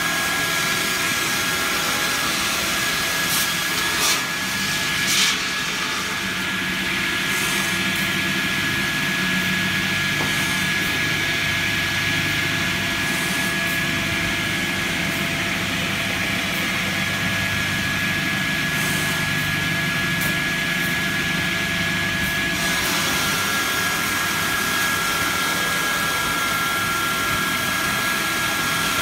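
Double-blade log table saw running, its circular blades cutting through a large log on the sliding carriage, with a steady high whine. A few brief knocks come about four to five seconds in.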